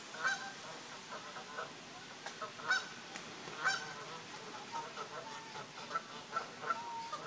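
A flock of Canada geese honking on the water: a run of short, softer calls from the flock, with three loud honks in the first four seconds.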